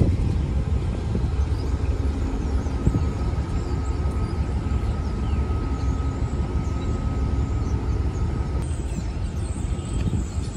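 Passenger train running, a steady low rumble with a faint steady whine through the middle.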